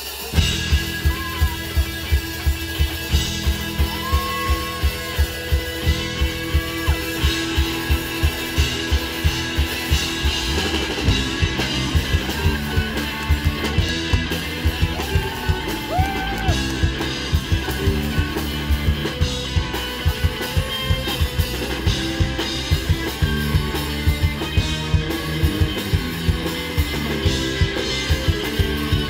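Live rock band playing through a PA: electric guitars over a steady kick-drum beat, the full band coming in loud right at the start.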